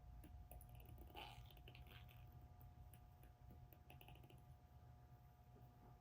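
Near silence with faint, scattered small clicks and scrapes of cleaning the switch landing inside a flashlight body, over a low steady hum.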